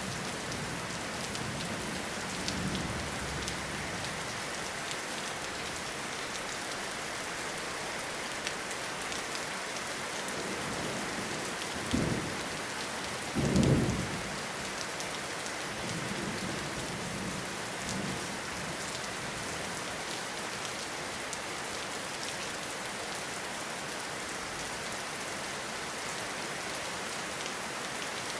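Steady rain falling in a forest, with low thunder rumbles; two louder, sudden rumbles come close together about halfway through.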